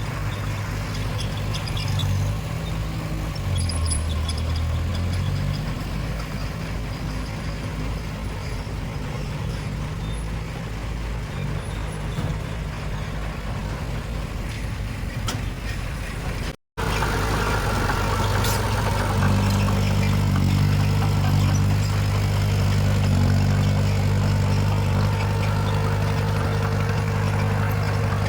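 Heavy diesel earthmoving machinery running with a steady low engine drone. The sound cuts out for an instant about two-thirds of the way through and resumes slightly louder.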